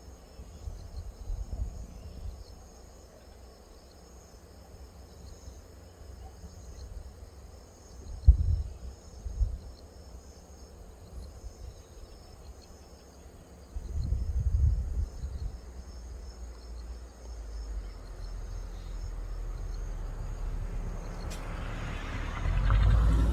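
Crickets chirping steadily and high-pitched in the background, with low rumbles on the microphone about a second in, around eight seconds and around fourteen seconds. Near the end a vehicle approaches, its noise swelling.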